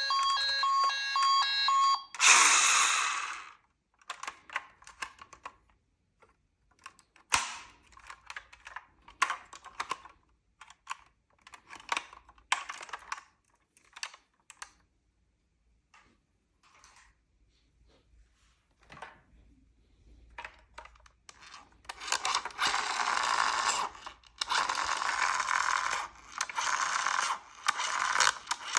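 A toy emergency vehicle's electronic sound module plays steady beeping tones that stop about two seconds in. A short loud burst of noise follows, then scattered clicks and rattles of small toy cars being handled. Near the end come two long stretches of steady scraping noise.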